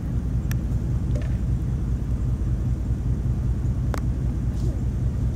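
Steady low rumble with a faint even hum, broken by two faint clicks, about half a second in and about four seconds in.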